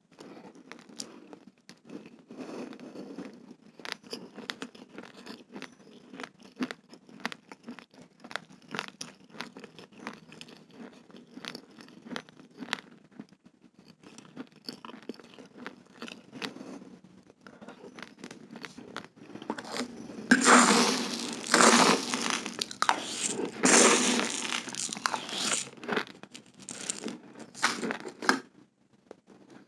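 Raw, uncooked fragrant rice grains being crunched and chewed: many sharp little cracks throughout, growing much louder and denser from about two-thirds of the way in for several seconds.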